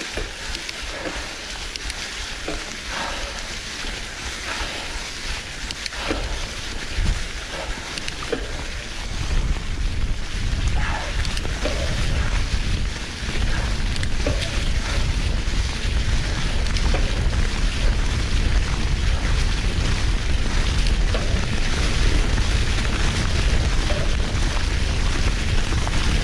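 Mountain-bike tyres rolling over dry fallen leaves on a forest trail, with crackling and small knocks from the hardtail bike (a Marin Team Marin 2). From about nine seconds in, a heavy wind rumble on the microphone grows louder and stays.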